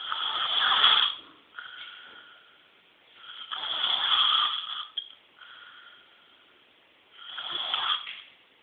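A person snoring: three loud snores about three and a half seconds apart, with softer breaths between them. It is a chronic snore, which the uploader asks might come from enlarged tonsils (tonsillar hypertrophy).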